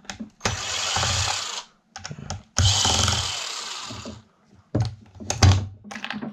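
Power drill run twice in bursts of about a second each, driving screws out of a desk fan's motor housing, followed by a few sharp clicks and knocks of metal parts being handled.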